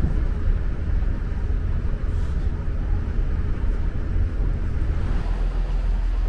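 Passenger train running at speed, heard from inside the carriage: a steady deep rumble with track and running noise.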